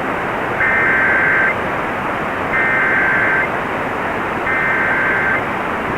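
Three one-second bursts of Emergency Alert System SAME header data, the harsh two-tone digital warble that opens an EAS alert, a second apart, over steady AM radio hiss. They mark the start of a National Weather Service severe thunderstorm warning.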